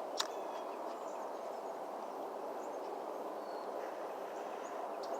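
Steady outdoor background noise with a few faint, scattered bird chirps and a single click near the start.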